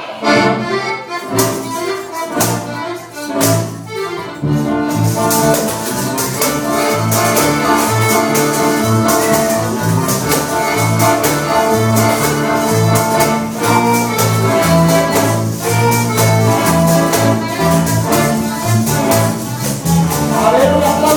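Live accordion-led band with guitars and percussion starting an upbeat dance tune, a few loud percussion hits at the start and then a steady bouncing bass rhythm.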